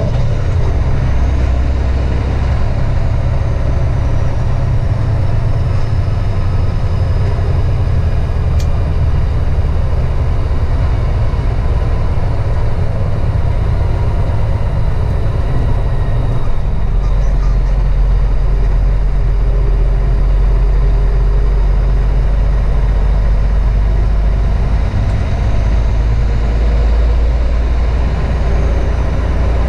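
Truck engine and road noise heard from inside the cab while driving, a loud steady low rumble that grows heavier a little past halfway.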